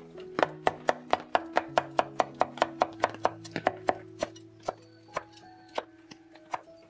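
Chinese cleaver chopping on a wooden chopping board, mincing garlic, then red bird's-eye chillies: fast, even knocks about five a second for the first few seconds, then slower single strokes spaced about half a second apart.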